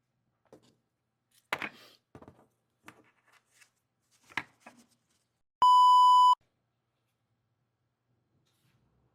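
A few light clicks and taps of small items being handled, then a single loud electronic beep at one steady pitch, lasting under a second.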